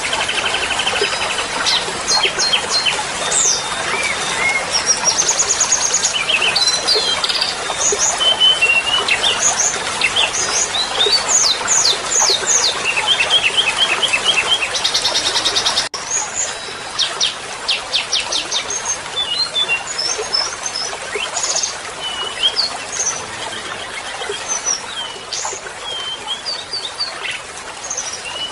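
Songbird calls from several birds layered together: quick chirps, whistled notes and fast trills over a steady hiss, as in a recorded 'masteran' song track for training a white-rumped shama. There is a brief break near the middle, where the recording is spliced.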